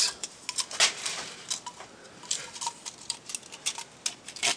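Long, thin drill bits rattling and clicking in a small plastic case as it is handled and opened: a string of light, irregular clicks, with a sharper click near the end.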